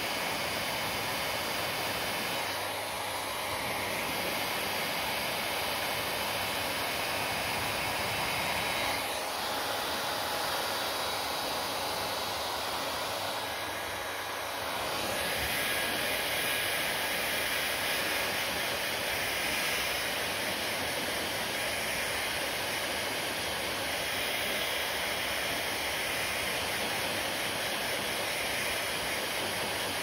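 Handheld hair dryer running on a steady blast of air, its rushing blow and motor hum close up, with two slight dips in level.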